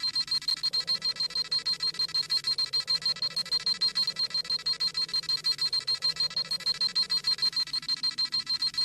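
Scouter scanning sound effect: a high electronic beeping that pulses rapidly and evenly, about five beeps a second, as the device reads a power level.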